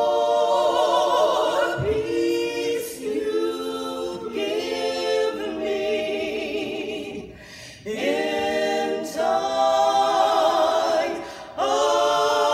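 Four-woman vocal group singing a cappella in harmony, in long held phrases, with short breaths between phrases about seven seconds in and again near the end.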